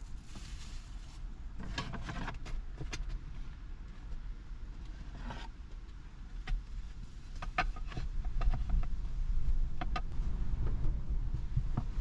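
Small items being handled and set down: scattered light clicks, knocks and rustles, with a sharper knock near the end, over a steady low rumble.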